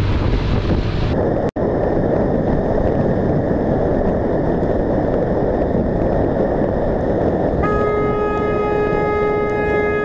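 Steady wind and road noise from a motorcycle riding in traffic on a wet road, then a vehicle horn sounds one long, steady blast starting about two and a half seconds before the end and still held at the end.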